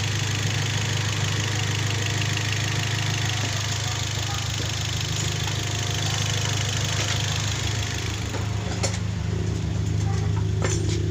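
Toyota Vios engine idling steadily, a low even hum with a broad hiss over it, and a few sharp clicks near the end.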